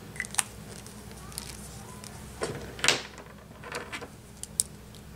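Desk handling noises: a few sharp small clicks and a short rustle about three seconds in, over a low steady hum.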